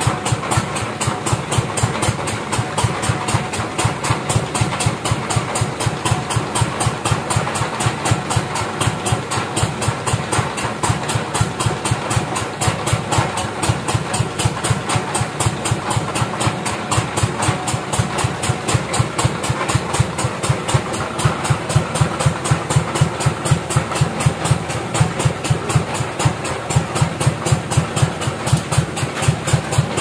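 Sawmill engine running steadily at idle with an even beat of several pulses a second, while no wood is being cut.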